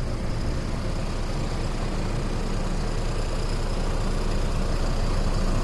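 AutoStack II turf harvester running steadily as it cuts and rolls turf: a continuous engine and machinery drone with a low hum, growing slightly louder toward the end.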